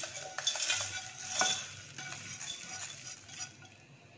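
Dry whole spices, seeds and bay leaves, swept by hand from a pan into a steel mixer-grinder jar: a dry rustling patter of seeds falling on metal, with a sharper tick about a second and a half in. It fades away shortly before the end.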